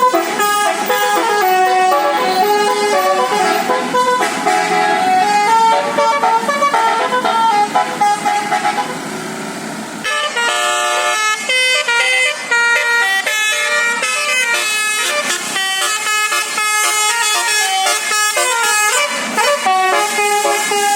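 Indonesian bus telolet horn of the basuri type playing a tune of stepped notes. About ten seconds in, it breaks off and a second horn tune with a different tone takes over.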